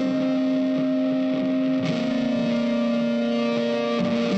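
Background music led by a guitar, with long held notes that change pitch twice.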